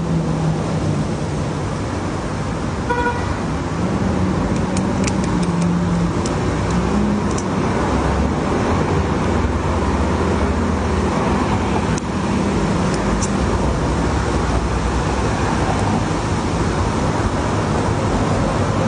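Steady street traffic noise with a low engine hum, and a brief car horn toot about three seconds in. A few sharp clicks sound over it in the middle.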